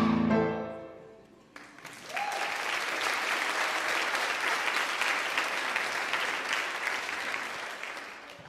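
The last note of the children's song dies away in the first second, then the audience applauds for about six seconds, the clapping fading out near the end.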